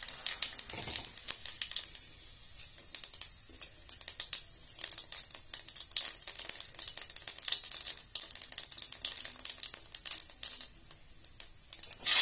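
Cumin seeds frying in hot mustard oil in a kadhai, crackling with a dense run of small, sharp, irregular pops. Right at the end chopped onion drops into the oil and a loud, steady sizzle starts.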